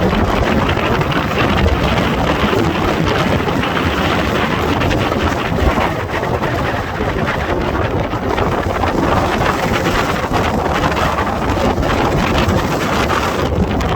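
Strong gusty wind buffeting the microphone: a loud, constant rumble and rush of noise with no break.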